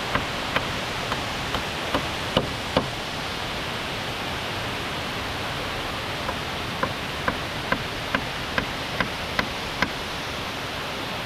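Steady rush of a waterfall, with runs of sharp, evenly spaced knocks of hand-tool work, about two and a half a second: one run in the first three seconds, then a pause, then another from about seven seconds in.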